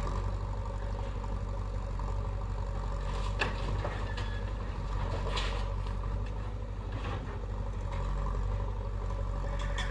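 Heavy diesel engine running steadily, with a sharp click about three and a half seconds in.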